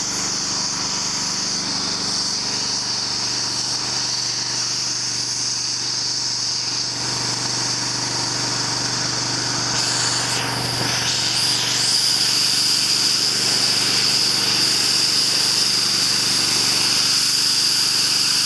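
Pressure washer running steadily, its water jet hissing over the hum of the machine; the spray shifts briefly and gets a little louder about two-thirds of the way through.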